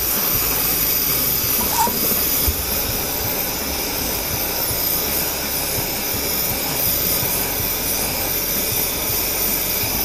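Hand-held gas soldering torch burning with a steady hiss, heating small bronze pieces and their flux for low-temperature soldering.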